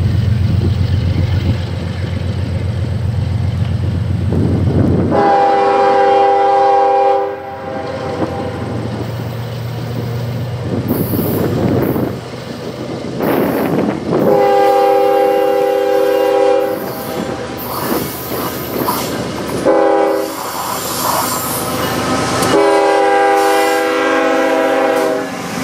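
CSX GE Evolution Series diesel locomotives, with GEVO-12 engines, hauling a tank-car train. The diesel drones at first, then the Nathan K5HL five-chime air horn sounds four times: long, long, short, long, the grade-crossing signal. Wheels and rail joints clatter as the train rolls past close by.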